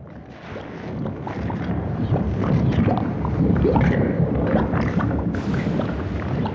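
Deep rumbling, wind-like ambience that swells in over the first two seconds, dotted with irregular crackles and clicks. A higher hiss joins about five seconds in.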